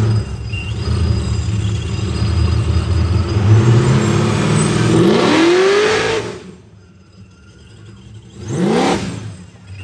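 Supercharged LS V8 in a 1964 Chevelle, rumbling at a lumpy idle and then revved. One rev climbs in pitch for about a second and cuts off sharply just past the middle, and a shorter blip follows near the end.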